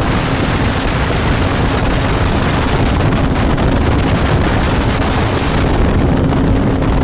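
Ultralight aircraft's engine and propeller running steadily in flight, heard from on board as a constant low hum under loud rushing wind on the microphone.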